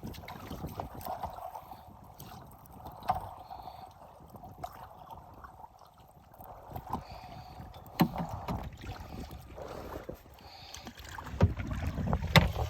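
Kayak paddling heard from a phone lying on the kayak: steady water and paddle noise, with a few sharp knocks and three faint high chirp-like notes.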